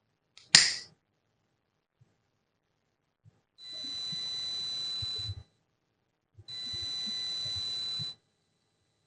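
A homemade flame-sensor alarm's buzzer sounds twice, each time a steady high beep lasting about a second and a half over a hiss, as the sensor picks up a flame. A sharp click comes about half a second in.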